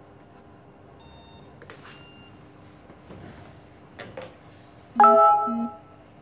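Electronic beeps from the BLHeli ESCs, sounded through the Sunnysky 2212 brushless motors when the signal lead is plugged into the receiver. There are two faint high beeps early on, a few small clicks, and then a much louder two-part beep about five seconds in.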